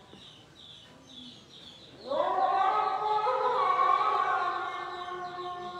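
A chanting voice holding long drawn-out notes, entering about two seconds in with an upward swoop and carrying on to the end.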